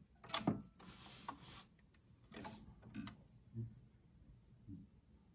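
Dual 701 turntable's start lever pushed with a sharp click, followed by a soft rustle and several faint mechanical clicks and knocks as the auto-start mechanism engages.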